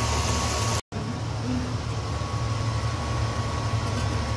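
Steady mechanical hum of a fan running, with a thin steady whine and a hiss over it, cutting out for an instant about a second in.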